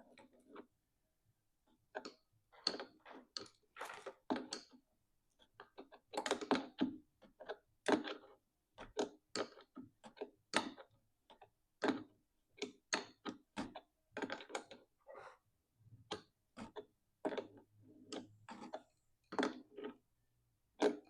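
Scattered light clicks and taps, irregular and a few a second, of hands handling and fitting threaded air-line fittings while the threads are wrapped in Teflon tape.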